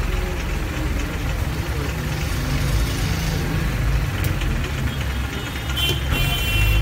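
A machine's steady low drone runs throughout, with a brief high-pitched sound about six seconds in.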